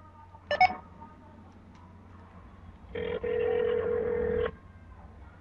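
Ringback tone of an outgoing phone call heard through the phone's speaker: one ring of about a second and a half, about three seconds in. A short blip comes about half a second in.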